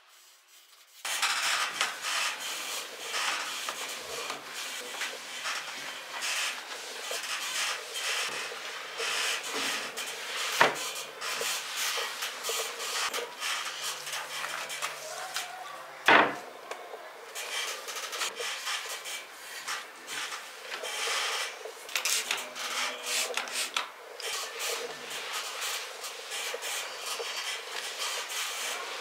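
Hand scrubbing, repeated rubbing strokes of a cleaning cloth or sponge across a hard surface, starting about a second in, with two sharp knocks midway.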